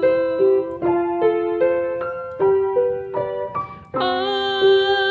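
Piano playing a gentle instrumental passage between sung lines: melody notes changing about twice a second over held chords. A fuller chord is struck about four seconds in, after a brief softening.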